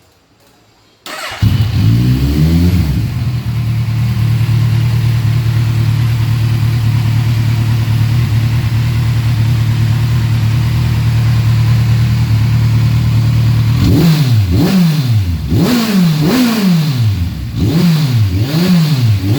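Kawasaki Ninja 1000's inline-four engine, fitted with an aftermarket sport exhaust tip, cranked and catching about a second in with a short rev, then idling steadily and loudly. Near the end it is revved in a quick series of sharp throttle blips, each rising and falling in pitch.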